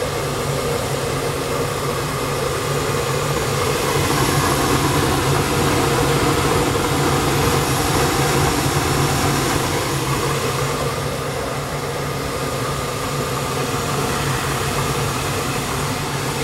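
Newly installed gas furnace running on its first firing, its gas burners burning with a steady rushing noise over a low hum.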